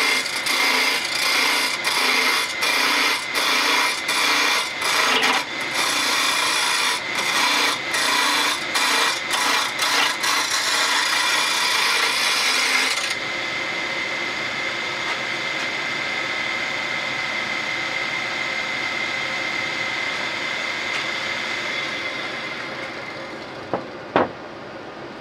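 Wood lathe turning a spindle blank while a hand-held turning tool cuts it: a loud hiss of cutting, broken into short strokes as the tool meets and leaves the wood, over the lathe's steady whine. About halfway through the cutting stops and the lathe runs on alone with its whine, which fades near the end as it winds down, with two sharp clicks.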